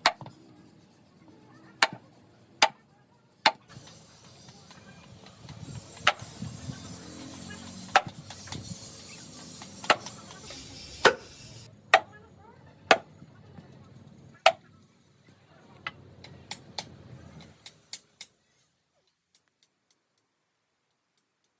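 Sharp, irregular knocks of hand tools striking wood, roughly one every second or so. A steady hiss runs through the middle for several seconds, and all sound cuts off abruptly near the end.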